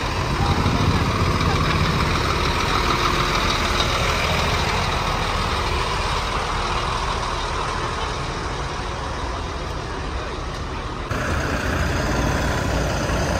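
Heavy bus engines idling with roadside traffic noise around them. The sound shifts abruptly about eleven seconds in.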